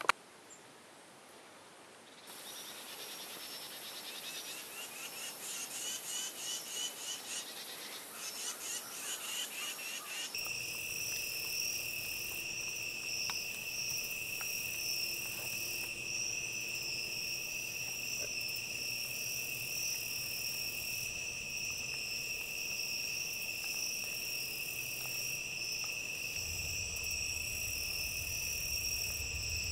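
Night chorus of crickets and other insects. For the first several seconds it is a rhythmic pulsing chorus, and from about ten seconds in it becomes a steady high trill at two pitches. A faint low rumble joins near the end.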